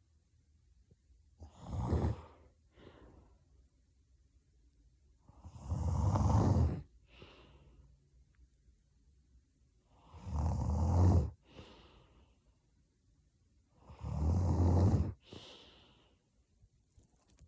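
A sleeping young woman snoring heavily: four loud, rattling snores about four seconds apart, each followed by a short, softer breath.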